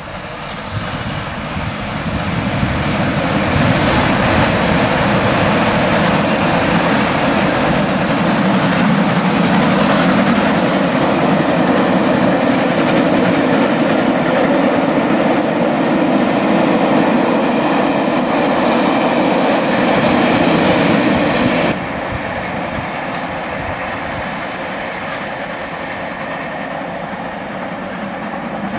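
Steam locomotive hauling a train of coaches past at close range, its exhaust and wheel clatter building over the first few seconds and staying loud as it passes. About 22 seconds in the sound drops suddenly and then carries on quieter as the train moves away.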